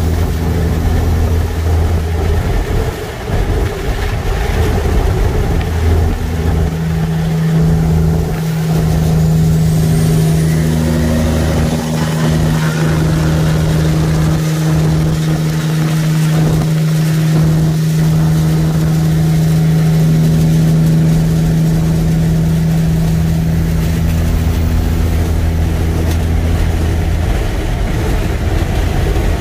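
Semi-truck diesel engine running steadily at highway speed, with road noise, heard from inside the cab: a steady low drone.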